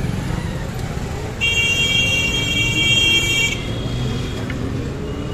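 Road traffic rumbling around an open e-rickshaw, with motorcycles and auto-rickshaws close by. A vehicle horn sounds one steady blast of about two seconds, starting about a second and a half in.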